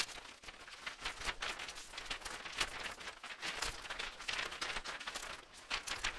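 Logo intro sound effects: a fast run of short noisy swishes, with a few soft low thumps.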